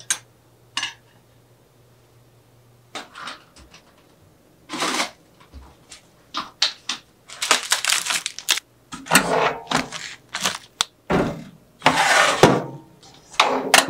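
Kitchen handling noises: a run of clicks, knocks and rustles as food is handled. Near the end a metal toaster-oven tray and wire rack clatter as a bread roll is put in.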